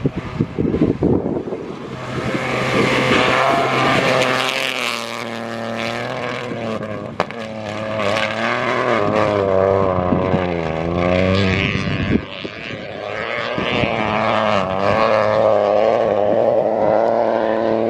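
Rally car engine working hard, its revs climbing and dropping repeatedly through gear changes and lifts over about sixteen seconds, with a steady low drone underneath. A single sharp crack about seven seconds in.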